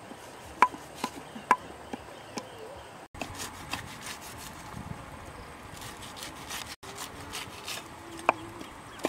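Knife work on a wooden chopping board: a handful of sharp, separate knocks in the first few seconds and one more near the end, with rubbing and scraping between them.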